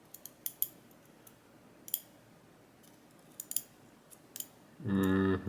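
Small sharp metal clicks, a dozen or so at uneven intervals, from tweezers and the spring-loaded sliders of an M&C Condor dimple lock core as the sliders are taken out. Near the end a short, steady hummed voice sound is the loudest thing.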